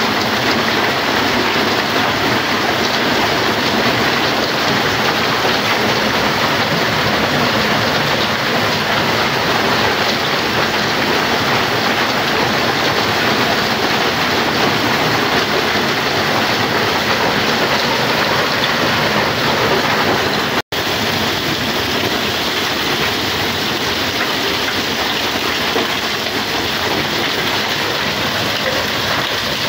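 Heavy hail and rain pelting down in a dense, loud, steady clatter, drumming on the garage roof overhead. It breaks off for an instant about two-thirds through, then goes on a little quieter.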